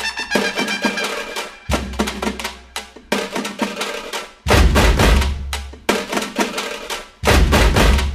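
Upbeat dance music driven by drums and percussion, with heavy bass-drum hits coming in about halfway through and again near the end.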